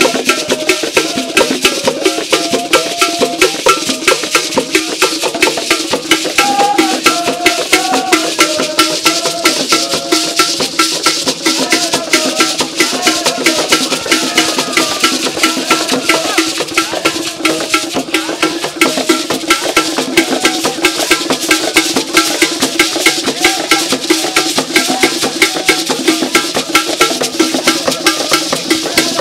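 Live traditional drumming on hand drums: fast, steady strokes with a hard, wood-block-like timeline and a rattle. Voices sing over the drums.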